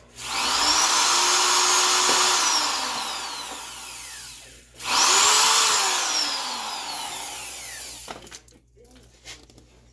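Handheld electric power tool run twice. Each time its motor whines up to speed, holds briefly, then winds down slowly as it coasts to a stop.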